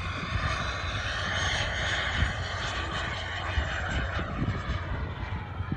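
Xicoy turbine of a CARF Rebel model jet running in flight, a steady rushing jet noise that slides lower in pitch partway through as the plane passes. Wind gusts rumble on the microphone underneath.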